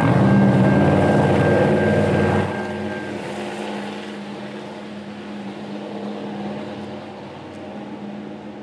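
A car drives past over the railroad crossing, its engine loud for the first two and a half seconds and then fading away as a low hum.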